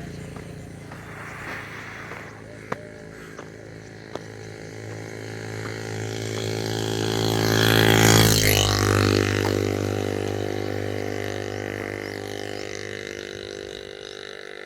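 A motor vehicle's engine droning as it approaches, passes close by about eight seconds in with its pitch dropping as it goes past, and then fades away. A few short clicks sound in the first few seconds.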